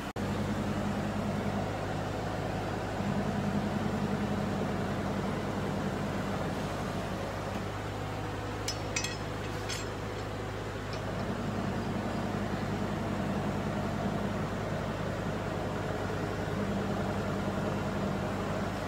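Hydraulic press's motor and pump running with a steady hum. A higher layer of the hum comes in and drops away several times, and a few light clicks sound about halfway through.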